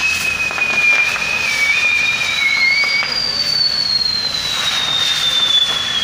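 Fireworks castle burning: its spinning firework frames hiss steadily with faint crackles. High whistling tones slide slowly in pitch, one falling over the first half and another rising about two seconds in, then falling slowly.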